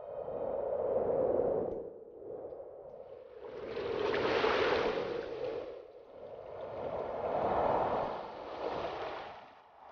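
Sea waves washing on a shore: a surf hiss that swells and falls back three times, about three seconds apart.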